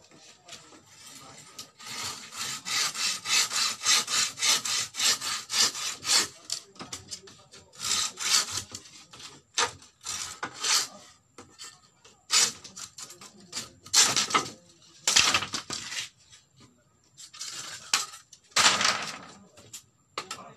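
Hand saw cutting through bamboo: a quick run of back-and-forth rasping strokes in the first few seconds, then separate strokes and short bursts of sawing, with pauses between.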